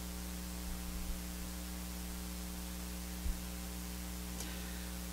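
Steady electrical mains hum, a low buzz with evenly spaced overtones, with a single soft low thump a little past the middle.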